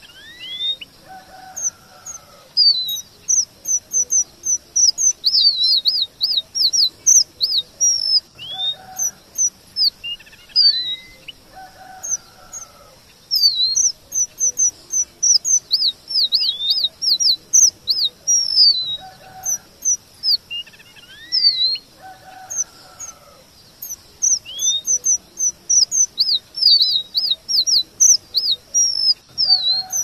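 Red avadavat (strawberry finch) singing: rapid phrases of thin, high chirps and short slurred whistles, some falling and some rising. The same phrase sequence comes round again about every ten seconds.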